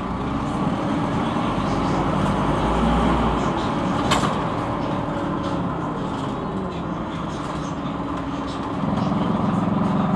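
Scania NewOmnicity city bus heard from inside the passenger cabin, its engine and drivetrain running with a steady low hum. A single sharp click about four seconds in, and the engine grows louder near the end.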